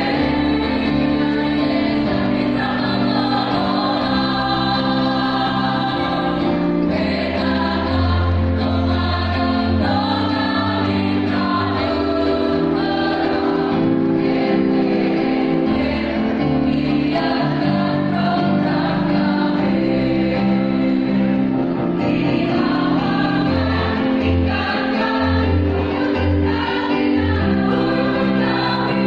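A choir singing a song with musical accompaniment, with held notes over a low bass line.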